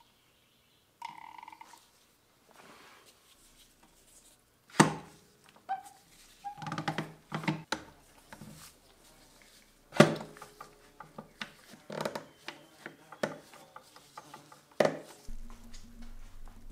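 Spring clamps and trigger bar clamps being fitted along the edge of a wooden tabletop: sharp knocks as the clamp jaws close on the wood, the three loudest about five seconds apart, with runs of quick clicks between them from ratcheting the bar clamps. A steady low hum starts near the end.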